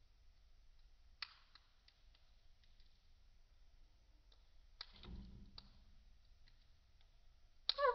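Scattered light clicks and taps from budgerigars moving about their cage, with a short budgie chirp near the end.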